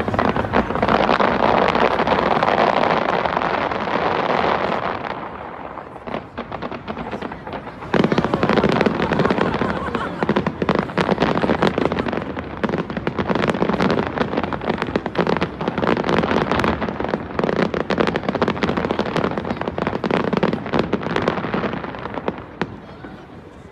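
New Year's fireworks going off in a dense, continuous barrage of bangs and crackling, easing briefly a few seconds in and then building again.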